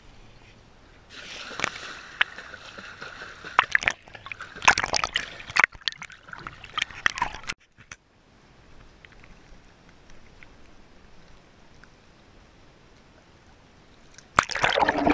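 Swimming-pool water splashing and sloshing around a handheld waterproof camera held by a swimmer, with sharp irregular splashes through the first half. A quieter steady hiss follows, then heavy splashing starts near the end.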